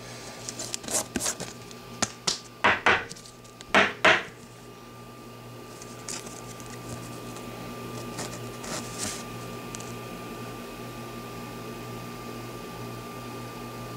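Trading cards and a rigid plastic card holder handled on a tabletop. A run of clicks and clacks fills the first four seconds, the loudest two near three and four seconds in, then soft rustling over a faint steady hum.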